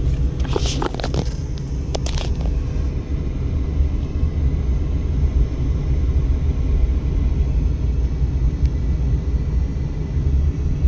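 Steady low rumble of a Mercedes-Benz car driving, heard from inside the cabin: engine and tyre noise, with two short hissy noises in the first two seconds.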